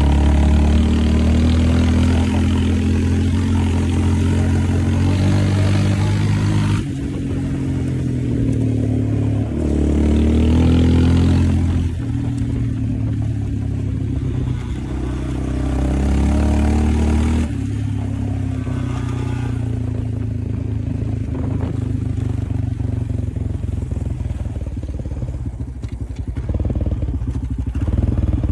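Yamaha Raptor 700R ATV's single-cylinder four-stroke engine revved and held up several times, dropping back between, then settling into a steady, pulsing idle for the last third.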